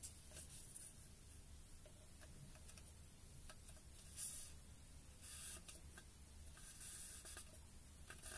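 Near silence with a low steady hum. A few faint brushing sounds and light clicks come from hands rubbing and turning a tape-wrapped air tank made of aluminum beer cans.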